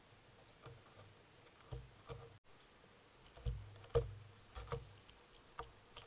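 Irregular, faint taps and thuds of an American crow's bill and feet on a seed-covered railing close to the camera, about ten knocks, the loudest about four seconds in.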